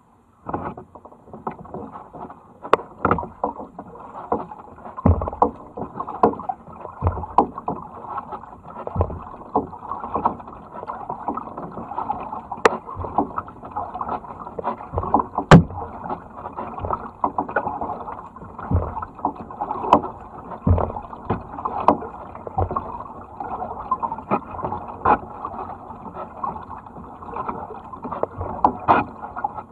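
Kayak paddling: double-bladed paddle strokes dipping and splashing, with water sloshing along the hull and frequent sharp clicks and knocks at an uneven rhythm.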